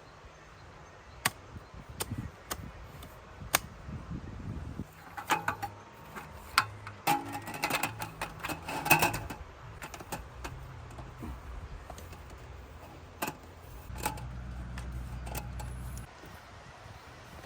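Irregular clinks and clattering of hard objects being handled, some ringing briefly like metal, busiest in the middle, over a low rumble.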